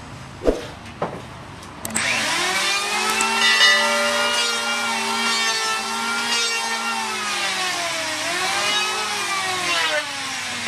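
Wooden sword handle squealing as it is twisted down onto the blade's hot tang, the wood burning and smoking. Two light taps come first, then about two seconds in a long, wavering squeal sets in that dips in pitch and comes back near the end.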